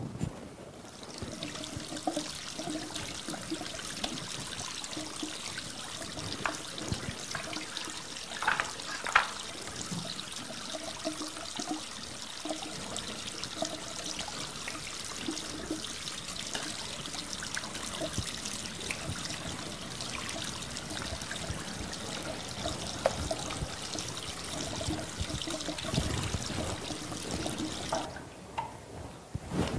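Water running from a bathroom washbasin tap and splashing into the basin, with a few louder splashes; turned on about a second in and shut off near the end.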